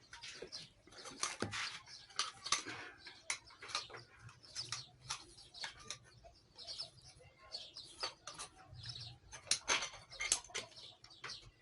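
Birds chirping repeatedly, with scattered faint clicks.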